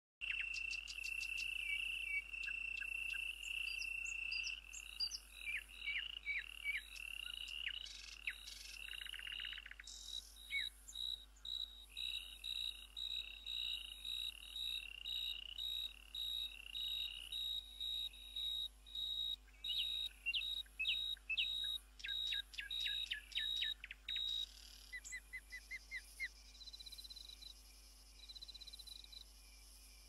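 High chirps and whistled calls like birds and insects, repeating about once a second, with quick falling sweeps and short trills in between.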